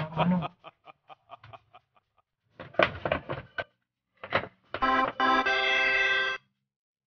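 A plastic protein-powder bag crinkling and rustling in irregular bursts as a hand digs inside it for the scoop. Near the end, a steady organ-like musical tone is held for about a second and a half.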